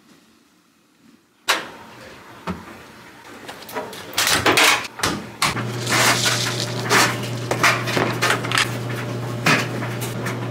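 Laundry being loaded into a top-loading washer: a sharp clunk about a second and a half in, then clatter and rustling as liquid detergent is poured and a scoop of powder added. A steady low hum starts about halfway through.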